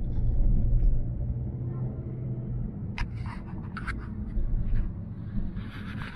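Cabin noise in a moving car: low engine and road rumble from a Hyundai Creta's 1.6 petrol engine with automatic gearbox, with a steady engine hum that fades about two and a half seconds in. A few short sharp clicks come about halfway through.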